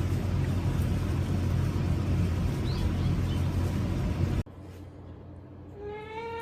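Steady rumbling background noise with a low hum that cuts off abruptly about two thirds of the way through, leaving a quieter room; near the end a cat begins to meow, its call rising in pitch.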